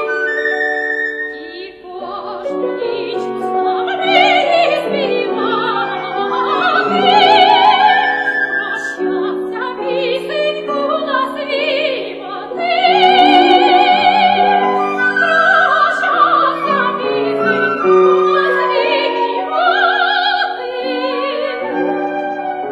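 Operatic soprano singing a romance with a wide vibrato over an instrumental accompaniment, the phrases separated by brief breaths.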